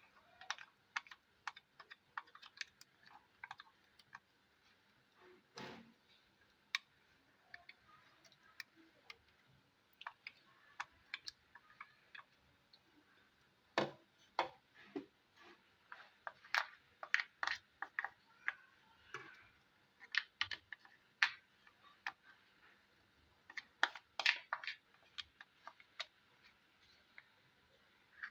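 Irregular light clicks and taps of a spoon scraping freshly ground ginger-garlic paste out of a mixer-grinder jar and onto a plate, coming in clusters with short pauses between.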